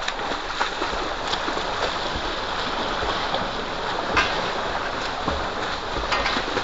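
Water pouring from a pipe into a concrete tank, with people splashing and kicking in it; several sharp splashes stand out, a loud one about four seconds in.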